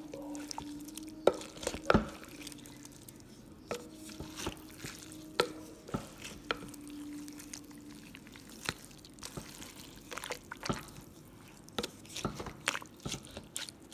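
Meat mallet mashing and stirring ground turkey in a slow cooker: irregular wet squelches and sharp clicks of the utensil in the pot.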